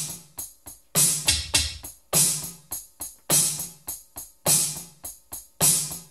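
Drum beat played on a Roland SPD sampling pad, its pads triggering electronic drum samples: a loud, heavy hit about every second with lighter strokes between.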